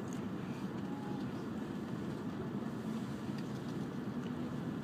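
Steady low rumble of an E5-series Shinkansen heard from inside a passenger car as the train rolls slowly out of a station, with a few faint clicks.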